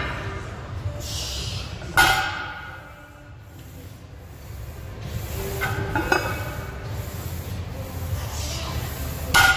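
A 370 lb barbell loaded with iron plates set down on a rubber gym floor during deadlift reps: a ringing metal clang about two seconds in and another near the end, with lighter plate clinks around six seconds as the bar is pulled. A steady low hum runs underneath.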